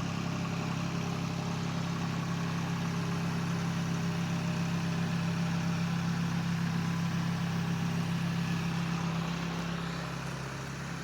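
An engine running steadily at a constant speed, easing off slightly near the end.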